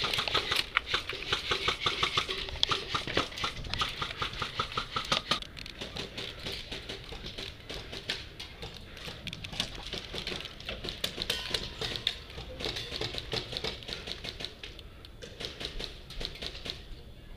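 Airsoft guns firing: rapid runs of sharp clicking shots, dense and even for about the first five seconds, then thinner and more scattered.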